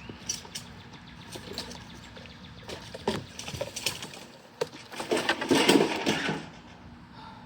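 Handling noise as wire and tools are worked: scattered clicks and knocks, then a louder rustling stretch about five to six seconds in.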